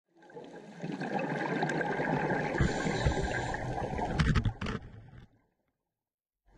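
Muffled underwater noise heard through a GoPro's waterproof housing: a steady rush of moving water, with a few sharp knocks a little after four seconds in. The sound then cuts out abruptly to silence.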